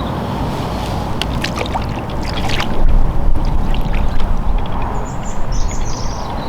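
Water splashing as a hooked fish thrashes at the surface, loudest around three seconds in, over a steady wind rumble on the microphone, with bird chirps near the end.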